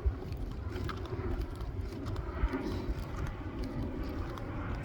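Outdoor background noise while walking, with a steady low rumble.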